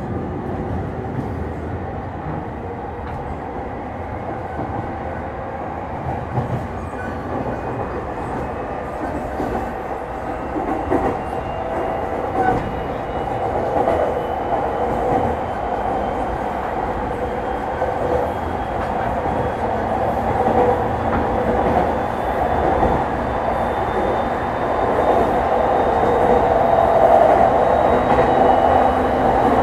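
JR East 209 series 500 electric commuter train running on the rails, with a faint whine rising slowly in pitch as it gathers speed. The running noise grows gradually louder, with a few light clicks from the wheels over the track.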